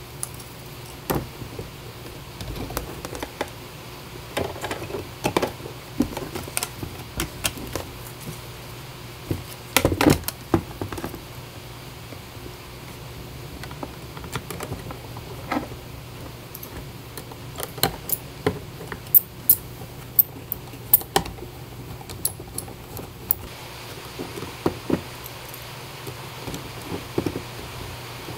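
Irregular small clicks and taps of hard plastic and metal parts being handled: a 3D-printed plastic chassis fitted to a diecast car body, with small pins pushed in and tiny screws turned with a precision screwdriver. A faint steady hum runs underneath.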